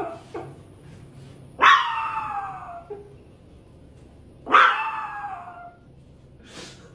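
Small toy poodle giving drawn-out, howl-like barks that fall in pitch, each about a second long, twice: once about one and a half seconds in and again about four and a half seconds in.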